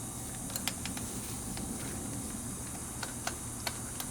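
Scattered light clicks and ticks from a T30 Torx bit on an extension, turned by hand to thread a screw, about nine irregular clicks over a steady hiss.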